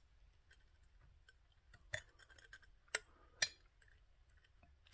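Small sharp clicks and clinks of hands handling small metal and glass objects at a workbench, with three louder clicks about two, three and three and a half seconds in.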